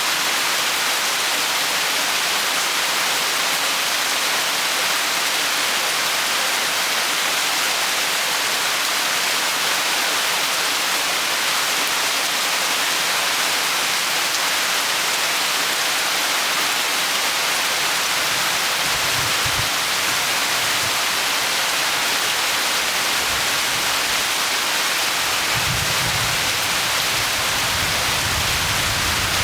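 Rain falling steadily, an even dense hiss. A low rumble comes in twice in the second half.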